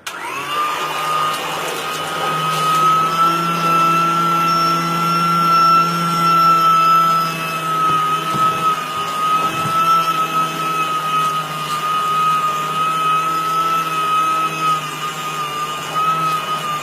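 Motor of a compact budget washing machine switching on and running steadily, with a high whine over a low hum. The pitch rises quickly to speed in the first second, then holds.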